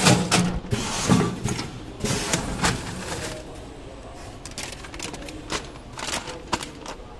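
Plastic packaging pouches crinkling and rustling in irregular bursts as they are handled and moved about.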